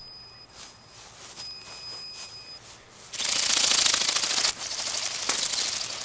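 Rapid, dense buzzing rattle close to the microphone, like the motor-driven flapping wings of a Bionic Bird ornithopter drone. It starts suddenly about three seconds in and is loudest for about a second and a half, then carries on a little weaker.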